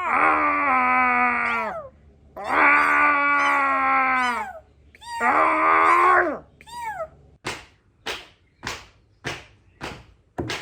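Three long, wailing cat-like yowls, each falling in pitch, then a short yelp, followed by a steady beat of sharp strikes about twice a second.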